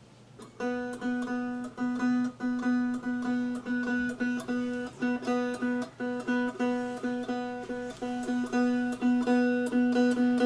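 One-string cigar box diddley bo plucked over and over in a steady rhythm, about two to three plucks a second. It has no fretboard, so every pluck rings the same single open-string note.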